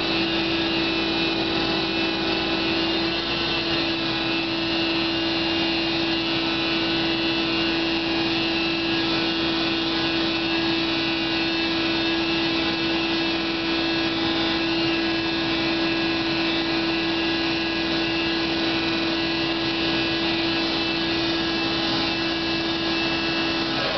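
Construction machinery running without a break: a steady mechanical drone with one strong, constant hum and a whine above it.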